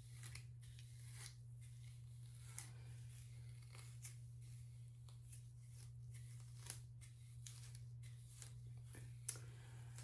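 Faint crackling and rustling of hands working through damp hair, with scattered light clicks, over a steady low hum.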